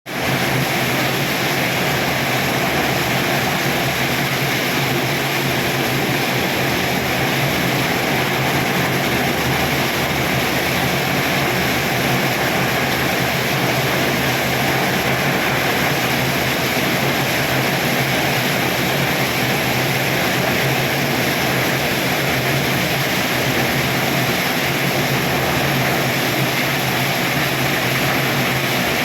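Very heavy rain pouring down steadily, a dense, even hiss that does not let up.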